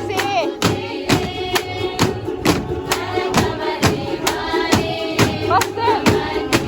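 Music with a steady percussive beat, about two strikes a second, under a group of voices singing.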